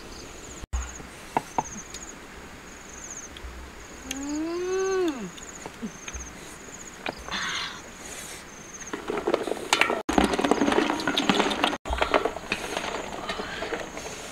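A metal ladle stirring duck eggs in a large wok of boiling water: a dense clatter of eggs knocking against each other and the pan, loudest from about nine seconds in. Insects chirp in a steady repeating pattern throughout, and one drawn-out animal call rises and falls about four seconds in.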